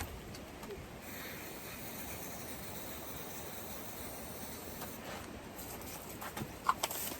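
Footsteps crunching through dry leaves and brush, several sharp crunches near the end, after a stretch of steady rustling hiss.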